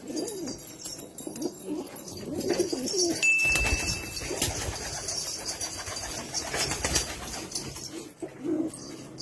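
Domestic pigeons cooing, with rustling and a brief steady high tone about three seconds in.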